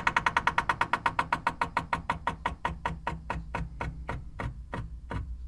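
Cooker hood fan winding down. A rhythmic ticking, one tick per turn of the fan, slows steadily from about ten a second to three or four a second and grows fainter.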